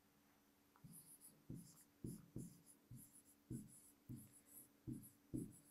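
Faint taps and scratches of a pen writing on an interactive whiteboard screen: about nine short strokes, each a soft tap with a light high squeak.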